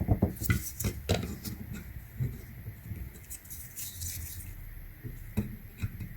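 Hard plastic clicks, knocks and rubbing as a J1772 charging plug is handled and pushed against a J1772-to-Tesla adapter without latching in. The knocks are irregular and thickest in the first second.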